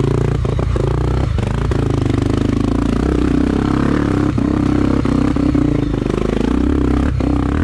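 Single-cylinder trail motorcycle engine running at low, fairly steady revs as the bike picks its way up a rocky climb, with several sharp knocks and clatters as it bumps over rocks.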